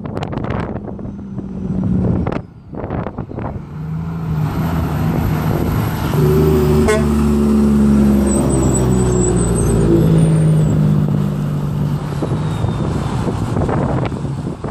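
Semi truck's diesel engine pulling a heavy oversize lowboy load, growing louder as it passes close by and easing off as it moves away.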